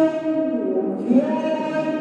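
Male Quran reciter chanting tilawah, holding a long sustained note that bends through brief ornamental pitch turns about halfway through before settling again.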